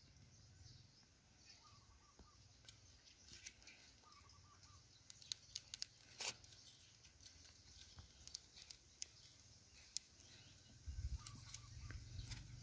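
Near silence: faint outdoor ambience with scattered light clicks and a few faint short chirps, and a low rumble about eleven seconds in.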